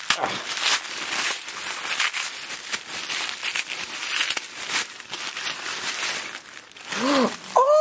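Tissue paper crinkling and rustling as hands unwrap a small toy from it, a dense crackly rustle that thins out shortly before the end.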